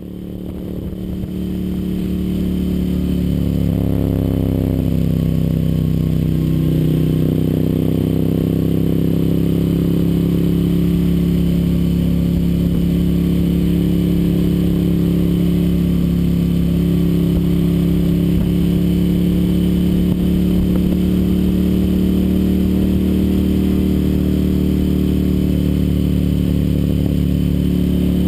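Ducati Monster 1100 S air-cooled L-twin with a Termignoni exhaust, heard from on board while riding. It fades in over the first couple of seconds, the engine note rises about four seconds in, and then it holds a steady cruising drone.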